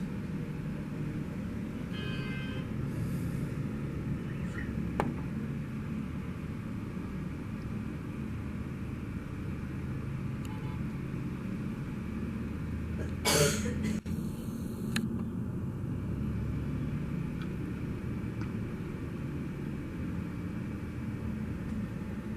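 Steady rumble of passing road traffic, with a short loud burst of noise about thirteen seconds in.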